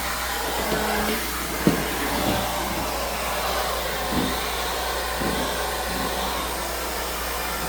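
Central vacuum cleaner running, a steady rush of air being sucked through the hose and floor head, with a few light knocks as the wand moves about.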